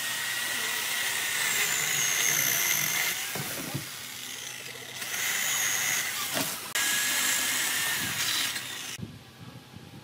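Small electric chainsaw running and cutting through a tree branch: a steady high motor whine over the chain's hiss. It eases off around three and a half seconds in, comes back up near five seconds, and stops about nine seconds in.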